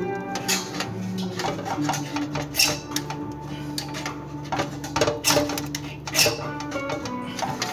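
Background music with held notes, over a few sharp, brief metallic scrapes from a hand tool worked against the inside of a stainless steel colander.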